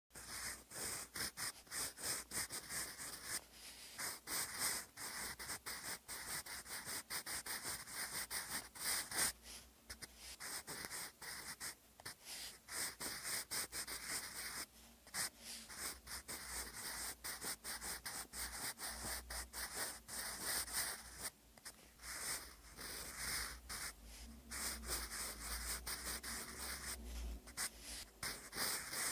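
Wooden graphite pencil writing cursive on lined paper: the lead scratches across the paper in quick strokes, with short pauses between words.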